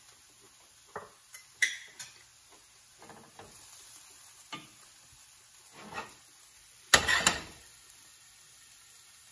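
Spoon clinking on a plate and a wooden spatula scraping and knocking in a stainless steel pan while sautéed carrots are scooped out, a few scattered clinks and scrapes with a louder clatter of dishes about seven seconds in.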